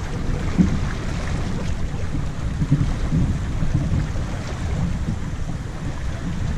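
Wind rumbling and buffeting on the microphone aboard a sailboat under way, in irregular gusts, with water noise underneath.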